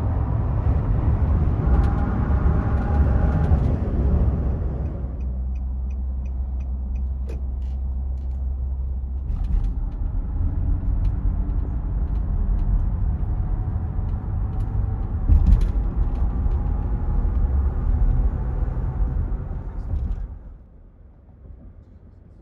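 Car driving at highway speed: a steady low rumble of road and engine noise. It drops away sharply near the end.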